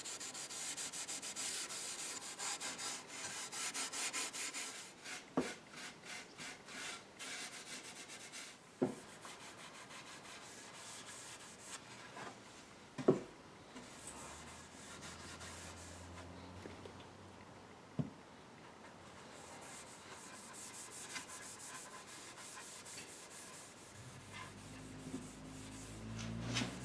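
Cloth rag rubbing oil-and-beeswax polish over a teak tray in quick back-and-forth strokes, busiest in the first several seconds and then softer. A few sharp knocks break in, the loudest about halfway through.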